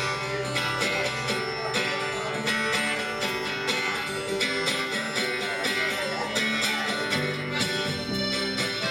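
Instrumental music led by a strummed guitar, with a steady beat and no singing.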